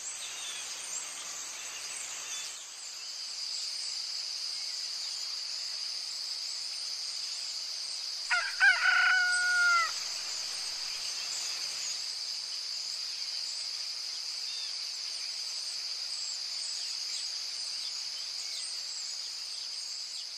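A rooster crowing once, about eight seconds in, over a steady high-pitched insect chorus with scattered small bird chirps.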